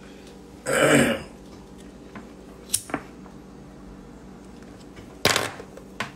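A man's short throaty vocal noise about a second in, then a few sparse sharp clicks and a brief puff as he strikes a disposable lighter and draws on a hand-rolled smoke.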